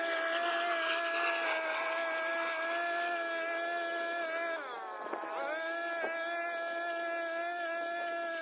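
Backpack brush cutter's small petrol engine running at high, steady revs. Its pitch sags for about a second around five seconds in, then picks up again.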